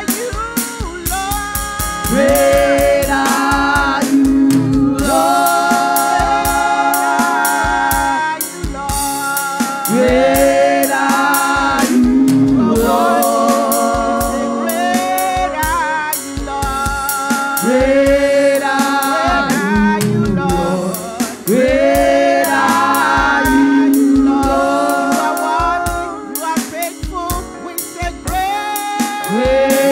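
Women's gospel praise team singing into microphones, several voices together, over live accompaniment with a steady drum beat.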